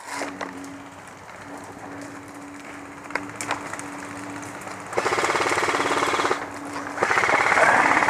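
Airsoft electric gun firing on full auto: two long rapid rattling bursts, the first starting about five seconds in and the second near the end.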